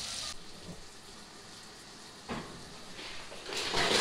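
Meatballs sizzling in oil in a frying pan, cut off abruptly a third of a second in. A quieter room follows, with a single knock about two seconds later and a clatter of plastic toys and a plastic bin being handled near the end.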